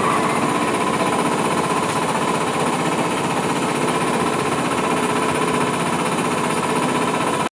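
Small boat engine running steadily under way, with a rapid, rattling beat.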